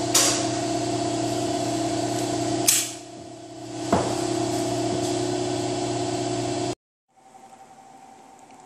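A machine running with a steady hum and hiss. It stops about three seconds in, starts again with a click a second later, then cuts off abruptly near the end.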